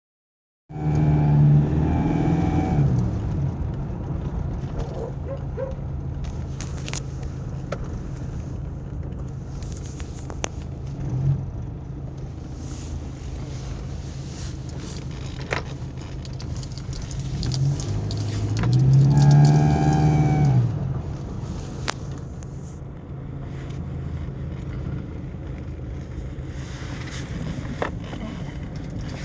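2006 Toyota SW4 automatic engine idling steadily, revved twice, briefly about a second in and longer around the middle, with a short blip in between. The noise it makes when accelerating is put down to an intercooler hose clamp.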